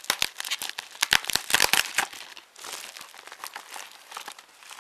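Wrapping on a parcel item being handled and unwrapped, crinkling: dense, sharp crackles for about the first two seconds, then softer rustling.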